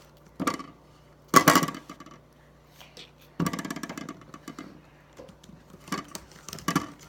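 Kitchen utensils clattering: a knife knocking and scraping against bowls as a banana is cut into pieces. There are a few sharp knocks and a quick rattling run of about a second in the middle.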